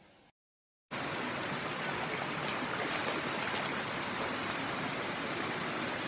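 Waterfall's rushing water: a steady, even noise that cuts in suddenly about a second in, after a moment of dead silence.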